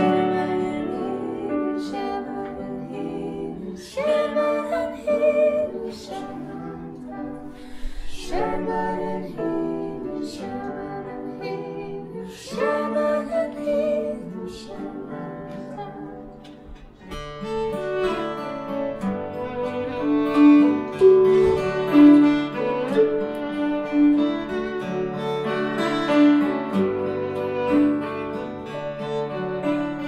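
Live traditional folk music: a slow melody in phrases about four seconds apart, then from about 17 seconds in a fuller, louder passage with fiddle and acoustic guitar together.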